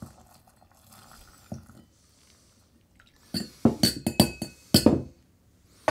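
Hot brine trickling through a stainless steel funnel into a glass jar, then a quick run of sharp clinks and knocks from about three and a half to five seconds in as the metal funnel and pan knock against the glass jar.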